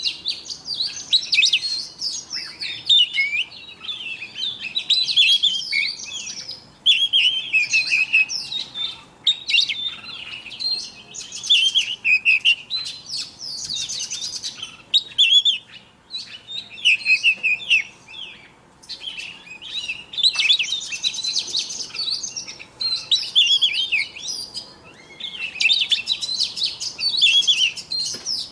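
Caged oriental magpie-robin singing: a long run of varied, high whistled and warbled phrases, broken by a few short pauses.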